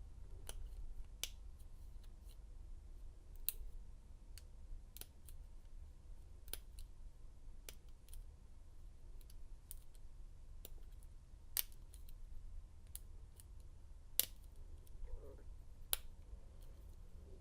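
Small irregular metal clicks of a lock pick and tension wrench working the pins of an American 1100 padlock, about one or two a second, with a few sharper ones.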